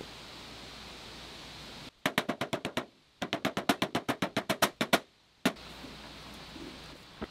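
Hammer tapping the metal lid of a gallon paint can shut: two quick runs of sharp metallic taps, about ten a second, then one last tap.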